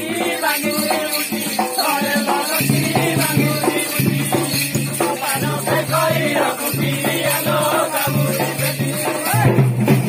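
Odia folk music for a danda nacha dance: drum and rattling percussion under a wavering melody line. A low note comes in about two and a half seconds in and then repeats about every second and a half.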